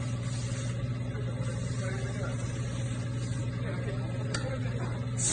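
Steady low mechanical hum, with a faint click about four seconds in.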